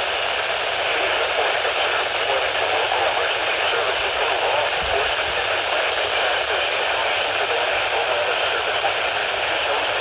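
Steady hiss of radio static from a receiver with no clear signal coming through.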